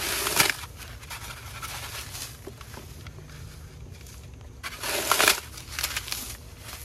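Gloved hands crushing and crumbling a block of damp Sahara dry floral foam into a plastic tub. The crunching comes in two louder bursts, at the start and about five seconds in, with softer crumbling between.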